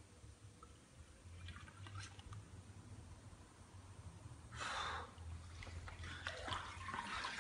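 Water in a hydrographic dipping tank sloshing and trickling faintly as hands sweep through it, with a short louder swish about four and a half seconds in. A steady low hum runs underneath.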